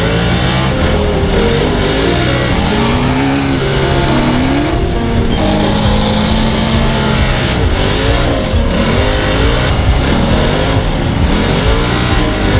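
Engines of a side-by-side and a sand rail driving hard over sand dunes, the revs rising and falling again and again over a steady low rumble.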